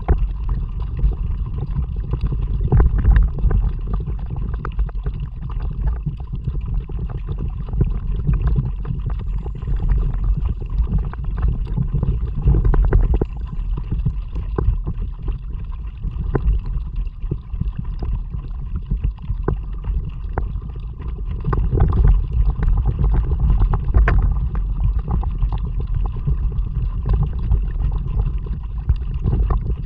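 Water splashing and sloshing around a kayak being paddled, with many small splashes and drips, over a heavy low rumble of wind on the action camera's microphone.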